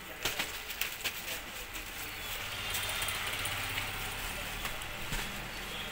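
Paper and plastic kites rustling and crinkling as they are handled and laid into a cardboard box, with a quick run of sharp crackles in the first second. An engine hum swells up through the middle and eases off again.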